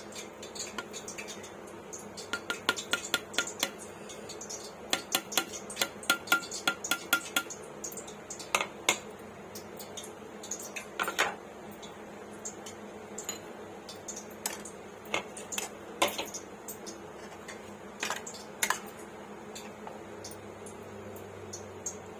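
A spoon clinking and scraping against a bowl as chicken is mixed with spices and yogurt for marinating. Quick runs of clinks, some with a brief ring, in the first third, then scattered single strikes.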